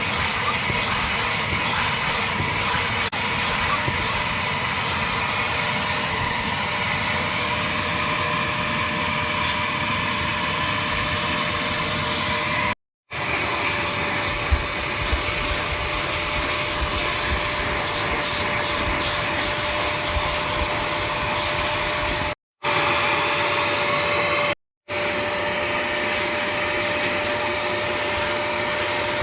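Bissell ProHeat 2X carpet cleaner running with a steady suction-motor whine and rush of air, cut to silence three times for a moment.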